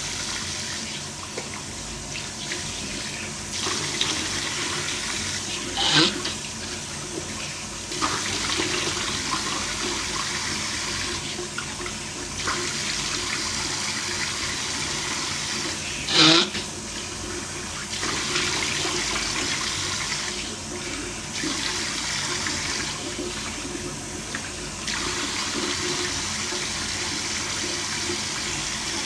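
Tap water running into a bathroom sink while a face is rinsed with cupped hands, the sound of the stream shifting every few seconds as the hands move in and out of it. Two short, louder noises stand out, about six and sixteen seconds in.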